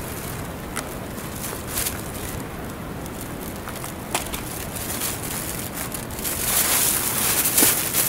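Hand-picking oyster mushrooms off a fallen log into a thin plastic bag: soft rustling with a few small snaps, then louder crinkling of the bag and crunching of dry fallen leaves for the last couple of seconds as she straightens up.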